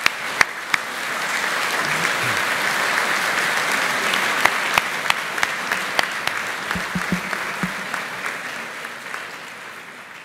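Audience applauding: a few sharp claps at first, swelling to full applause about three seconds in, then slowly dying away.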